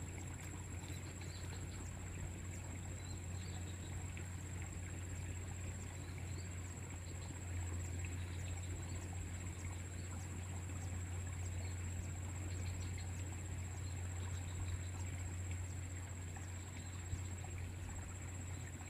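Quiet outdoor ambience: a steady low hum and a thin, steady high-pitched whine, with faint, scattered chirps.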